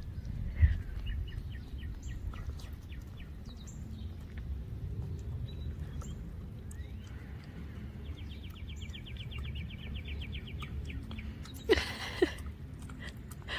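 Outdoor ambience over a steady low rumble, with small birds chirping. About eight seconds in there is a rapid trill of evenly repeated notes lasting about a second and a half. Near the end comes a brief louder noise.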